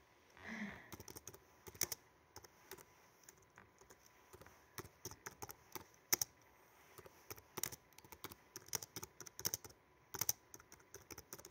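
Typing on a laptop keyboard: irregular key clicks in quick runs, with short pauses between words.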